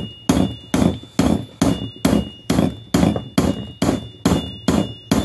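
Light ball-peen hammer tapping a bearing race installation tool in a steady rhythm, about two and a half blows a second, each blow ringing metallically: driving a new wheel bearing into an ATC350X front hub by its outer race.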